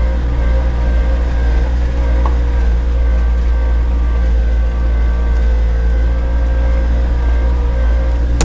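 Land Rover engine running steadily, heard from inside the cab, with a heavy low rumble.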